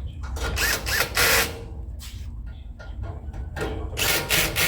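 Power drill driving screws into the sheet-metal back panel of a gas grill, in two runs of about a second each: one shortly after the start, one near the end.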